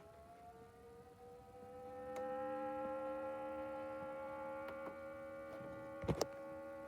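Alarm siren finishing its rise in pitch, then holding a steady, many-toned note that grows louder about two seconds in. A couple of sharp clicks about six seconds in.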